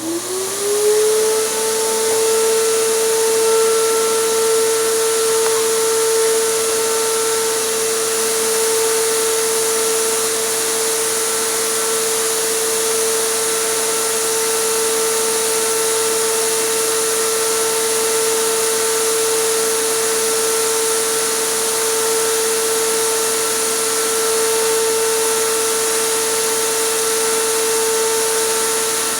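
Electric air compressor starting up, its motor whine rising in pitch just at the start and then running at a steady pitch, with a constant hiss of air.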